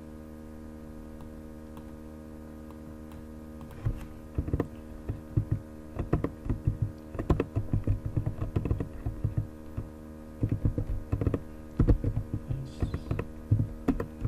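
Computer keyboard keys being typed in irregular runs of clicks from about four seconds in, over a steady electrical hum.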